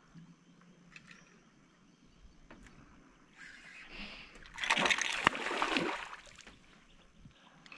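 Water splashing for about three seconds, starting softly about three seconds in and loudest near the middle, with one sharp crack inside the splash.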